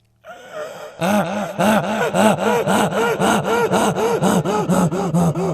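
A man imitating a donkey's bray into a microphone: from about a second in, a long run of quick see-sawing hee-haw calls, about three a second.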